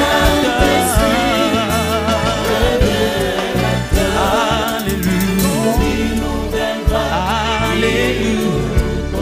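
Live gospel worship music: a woman sings lead into a microphone, her voice wavering in pitch, while the congregation sings along over steady low accompanying notes.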